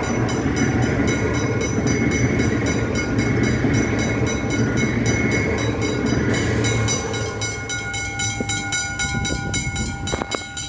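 Melbourne suburban electric train passing at speed: steady wheel and rail rumble with a constant high whine from the traction equipment, fading after about six seconds, with a few sharp clicks from the wheels near the end.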